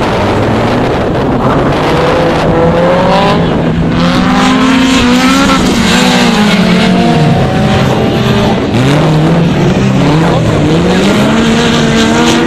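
Several autocross race cars' engines running hard, their pitch rising and falling over and over with throttle and gear changes as the cars race, over a steady haze of tyre and track noise.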